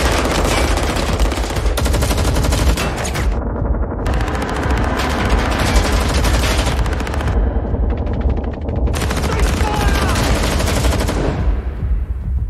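Several automatic rifles firing at once in a long, rapid volley, easing off briefly twice before stopping near the end, over a steady low rumble.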